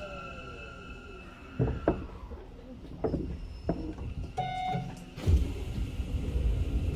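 Hanshin 1000 series electric train's traction motors and inverter whining down in pitch as it brakes to a stop, fading out about a second and a half in. Then come several sharp knocks, a short electronic chime just past the middle, and the doors sliding open with a loud rush about five seconds in.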